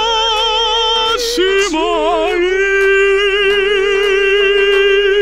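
Music with a high sung voice holding long, wavering notes, with a brief melodic turn about two seconds in.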